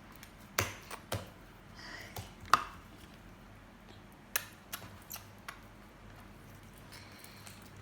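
Small plastic slime containers being handled and opened: a scatter of light clicks and taps, the sharpest about two and a half seconds in.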